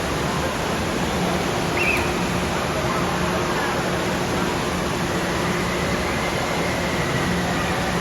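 Steady rushing noise, like falling and splashing water, with a faint high shout or squeal about two seconds in.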